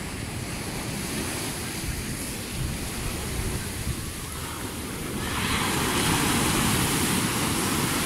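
Rough post-storm Mediterranean surf breaking and washing up a sandy beach, a continuous rushing hiss that grows louder from about five seconds in. Wind buffets the microphone with low rumbles.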